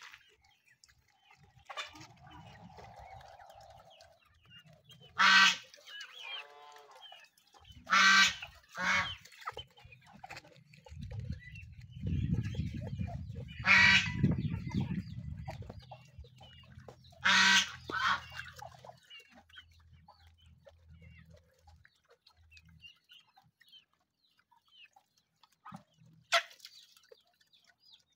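Domestic ducks and chickens calling: about seven loud, short honking quacks spaced a few seconds apart, with softer clucking and chirping between. A low rumble runs for a few seconds in the middle.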